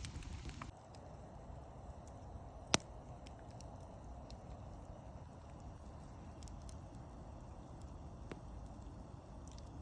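Campfire crackling: a steady low hiss with scattered faint pops and one sharp crack about three seconds in.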